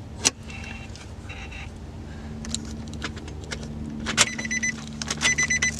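Nissan Xterra's engine idling steadily, heard from inside the cabin, with scattered clicks and light rattles from handling wiring and plugs under the dash; the clicks come thicker and faster near the end.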